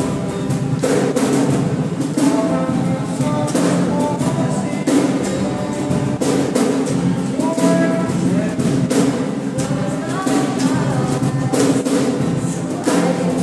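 Group singing to a strummed acoustic guitar, with hand claps marking a steady beat.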